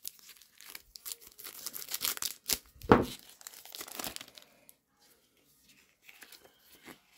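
Clear plastic wrapper of a trading-card pack being slit with a knife and torn open, crinkling, with the sharpest rips about two and a half to three seconds in. After about four seconds only faint rustling as the cards are slid out of the wrapper.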